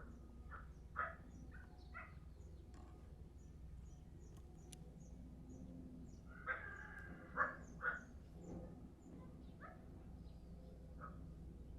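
Crows cawing: a string of short caws, the loudest three coming close together about two-thirds of the way through, with faint high chirps of small birds throughout.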